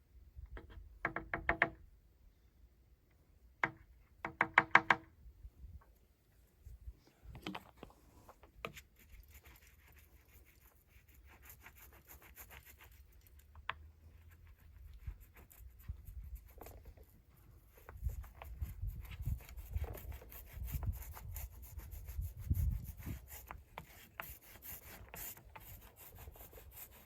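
Masking tape ripped off the drum shell in two short, harsh pulls, followed by a long stretch of soft rubbing and light scraping, heavier from about two-thirds of the way in, as the fiberglass cloth is rolled and pressed down onto the shell.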